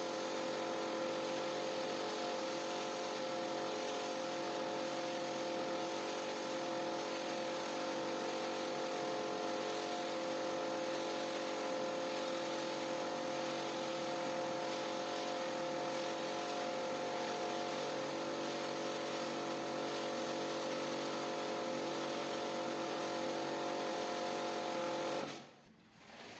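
Pressure washer running steadily, its motor hum over the hiss of the water spray on a wool rug; it cuts off suddenly near the end.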